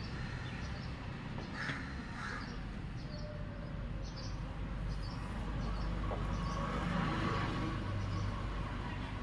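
Birds calling: a few harsh, caw-like calls and a run of short high chirps repeating every half second or so.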